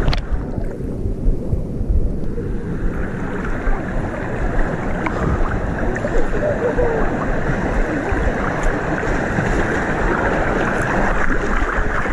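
Rushing, churning water of an outdoor wild-water rapids channel, heard from a camera riding at the water's surface, with splashing and wind buffeting the microphone.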